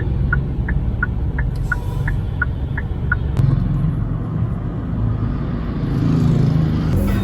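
Low, steady rumble of a vehicle on the move. During the first three seconds a short high beep repeats about three times a second, then stops.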